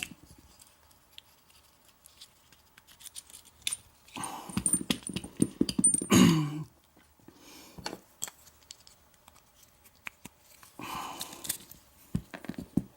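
Small metallic clicks and taps of lock cylinders and tools being handled as the plugs are pulled out for rekeying, with two brief louder voice-like sounds about four and eleven seconds in.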